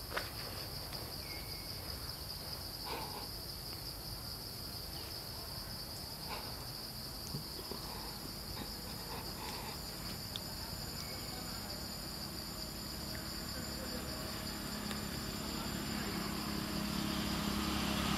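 Steady high-pitched drone of forest insects, with a few faint clicks. Near the end a low engine rumble grows louder as a motor vehicle approaches.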